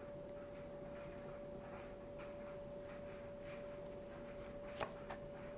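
A faint steady hum on one pitch, with soft rustles and light ticks of tarot cards being handled, and a short tap near the end.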